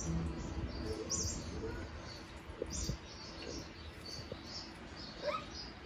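Short, high bird-like chirps repeating every half second to a second, with a few faint light taps and a brief rising call near the end.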